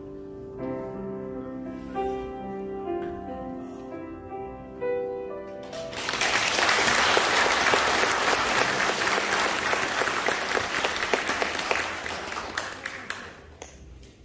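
Keyboard music of held chords ends about six seconds in, and the audience breaks into applause that fades away near the end.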